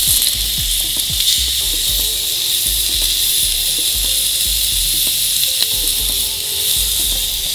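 Thick ribeye steak sizzling steadily as it sears on hot grill grates over charcoal, pressed down onto the grates by hand.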